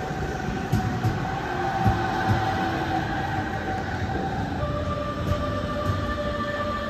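Hamburg S-Bahn class 474 electric train passing close by: a rumble of wheels on track with a few thumps over rail joints. A steady whine steps down to a lower pitch about four and a half seconds in.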